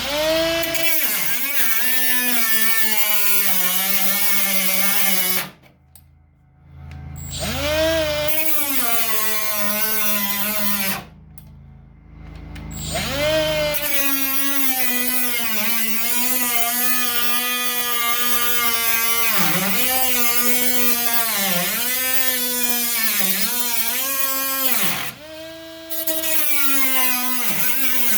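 Cutoff wheel cutting through sheet-steel body panels: a loud whine whose pitch dips each time the wheel bites into the metal and climbs back as it frees up. It runs in three long cuts with short stops about five and a half and eleven seconds in, and a brief let-up near the end.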